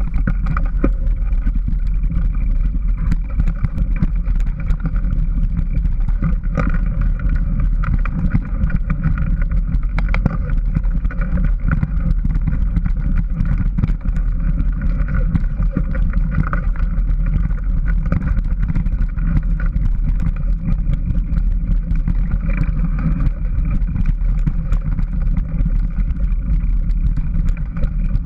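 Steady, loud rumble of riding fast along a dirt trail: wind and vibration on a mounted camera, peppered with many small knocks from bumps, with no rising or falling engine pitch.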